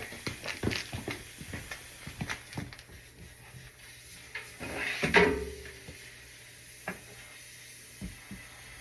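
Scattered clicks and knocks of things being handled, with a louder scraping clatter about five seconds in, then a few isolated knocks.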